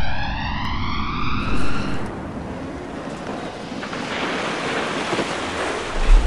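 Synthesized intro sound effects: a rising swept tone that cuts off about a second and a half in, followed by a steady rushing noise like wind or surf. Deep low thumps come in at the very end.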